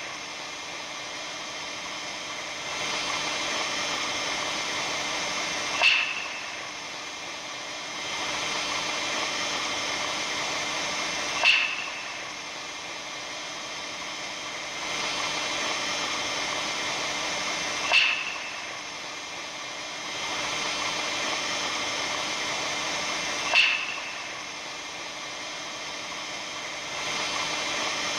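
Recording billed as the sound of the aurora borealis: a steady hiss with faint steady tones running through it, broken four times, about every six seconds, by a sharp short pop. After each pop the hiss drops a little, then swells back.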